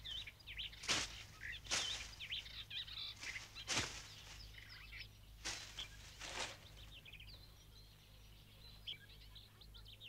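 Birds chirping softly, with about five short swishes of hay being tossed with a pitchfork, irregularly spaced over the first several seconds.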